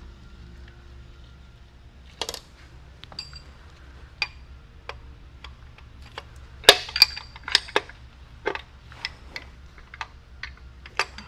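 Hand tools tapping and clinking against metal engine parts while connecting rods and pistons are taken out of the engine. A scattered run of sharp metallic taps, the loudest about two-thirds in and followed by a quick cluster, over a low steady hum.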